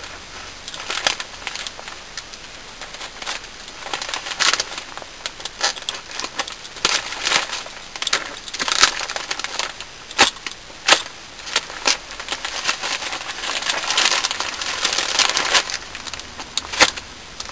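Packaging being cut and pulled open by hand: a padded jiffy bag and its wrapping crinkle, crackle and tear in irregular bursts.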